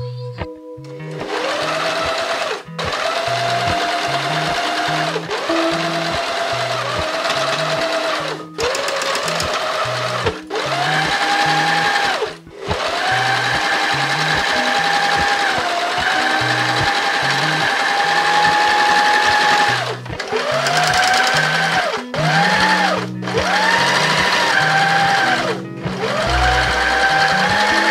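Janome Sewist 725S sewing machine stitching fabric in runs of a few seconds. Its motor whine rises as it speeds up at the start of each run, with short breaks between runs.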